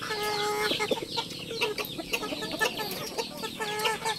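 Chickens clucking, in short calls near the start and twice near the end, over many quick ticks of a rooster's beak pecking feed from a steel bowl.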